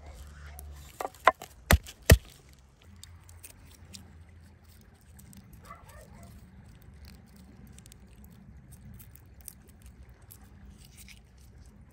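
A broad kitchen knife's flat blade smacking garlic cloves against a wooden cutting board to crush them, four sharp knocks in quick succession in the first two seconds. After that, faint rustling of papery garlic skins being peeled off by hand.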